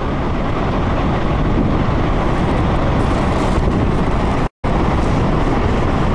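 Loud, steady roar of fast-flowing floodwater rushing down a channel, broken by a sudden cut to silence about four and a half seconds in.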